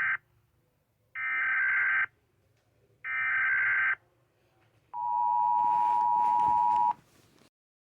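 Emergency Alert System tones: three short bursts of screechy digital data tones (the SAME header), about a second each with the first cut off at the start. About five seconds in comes the steady two-tone attention signal, held for about two seconds.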